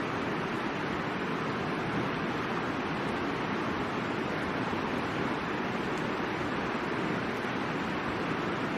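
Mountain river rushing steadily over its bed, an even unbroken roar of moving water.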